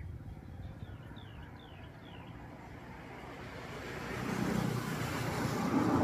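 A motor vehicle passing nearby, its engine and tyre noise growing louder through the second half and peaking near the end. Early on a bird gives a quick run of four or five short, high, falling chirps.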